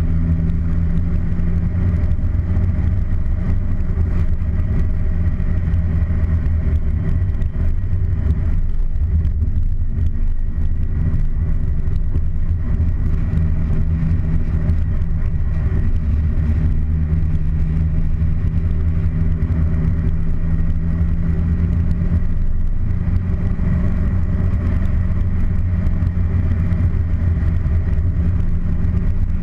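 Car engine and road noise heard from inside the cabin while driving: a steady, loud, low drone whose engine tones hold a near-constant pitch, easing slightly for a few seconds about a third of the way in.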